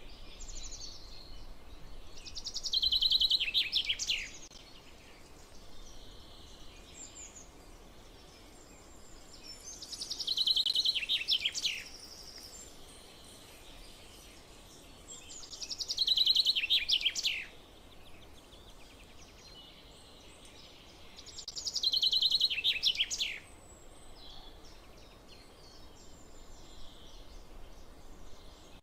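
Common chaffinch singing four songs, about six seconds apart. Each is a quick rattling trill that ends in a few falling notes. Fainter chirps come between songs.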